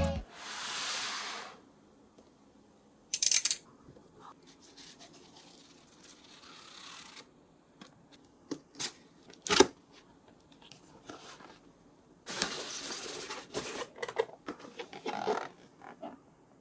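Toy packaging being handled and opened by hand: intermittent rustling, scraping and tearing, with scattered sharp clicks, the loudest about ten seconds in.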